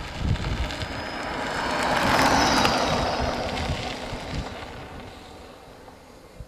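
A Kreidler RMC-E Hiker 3 kW electric scooter passing close by, its high electric motor whine over tyre noise on the road. The sound builds to a peak about two seconds in, then fades as it rides away.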